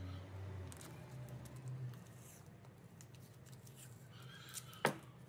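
Paper masking tape being pressed and wrapped around a knife handle: faint rustling and small crinkling clicks, with one sharper crackle of tape near the end.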